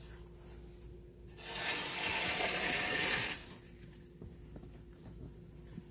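A burst of rustling hiss lasting about two seconds, starting about a second and a half in, over a faint steady high whine.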